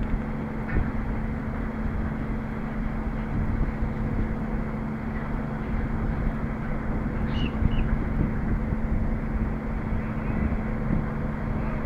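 Diesel engine of a truck-mounted mobile crane running at steady revs, a constant hum over a dense rumble.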